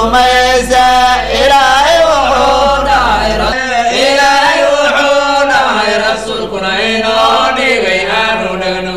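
Voices chanting a drawn-out melody in the interlude between verses of a Somali nasheed. A low steady hum underneath stops about a third of the way through.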